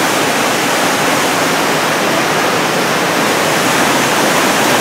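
Whitewater rapids pouring over rock ledges: a loud, steady rush of water.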